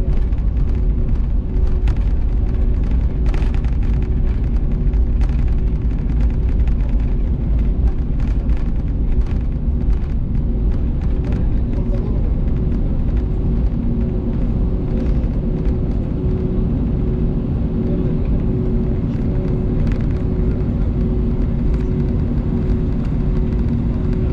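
Airbus A220's Pratt & Whitney PW1500G geared turbofans running at taxi power, heard inside the cabin as a steady low rumble with two steady hums. Occasional short clicks and knocks come through as the aircraft rolls along the taxiway.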